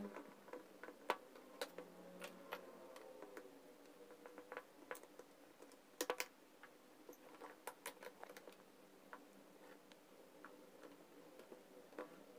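Faint, scattered clicks and taps of a screwdriver and hands working on the plastic casing of a Makita HG6003 heat gun during reassembly, with a quick cluster of three clicks about six seconds in.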